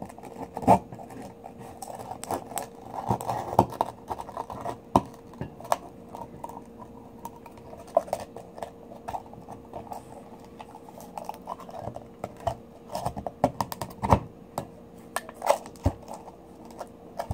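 Metal blade scraping and clicking against the shell of a large pearl oyster as it is pried at the edge, in irregular sharp clicks and short scrapes.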